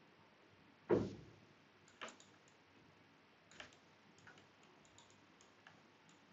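Faint, scattered clicks of a computer mouse. The loudest is about a second in and has a duller knock to it; a few lighter clicks follow, a second or more apart.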